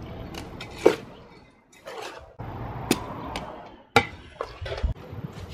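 A shovel scraping and scooping through a soil mix of garden soil, potting mix, chicken manure and bone meal in a wheelbarrow, with three sharp knocks where the blade strikes the tub.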